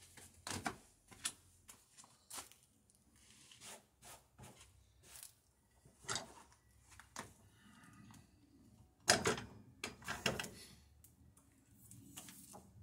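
Scattered clicks and knocks of a corded circular saw and boards being handled by hand, with some footsteps early on; the saw is not running. The loudest knocks come about nine to ten seconds in.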